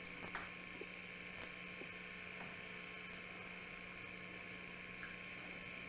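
Steady electrical hum and hiss with a few faint, short clicks of a plastic film canister being handled and cut with a razor blade.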